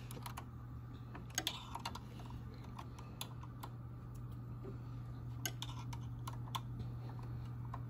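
Scattered, irregular light clicks and taps of machine parts being handled and fitted on an embroidery machine, over a steady low hum.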